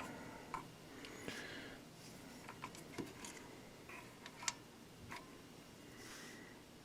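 Faint, irregular light clicks and taps of small handling noises over quiet room tone, with a couple of soft rustles.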